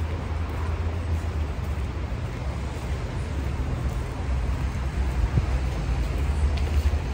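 Steady city street traffic noise, cars passing along the road, with a strong low rumble underneath.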